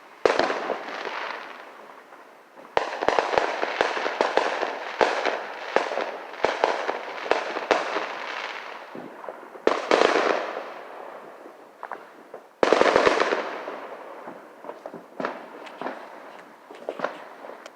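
Fireworks going off: four loud bangs, each followed by a long crackling spray that dies away, with many rapid sharp pops between them.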